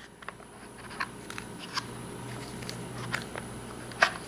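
Light clicks and taps of plastic fountain-pen ink cartridges being prised out of the slots of a gift box insert, with the sharpest click about four seconds in.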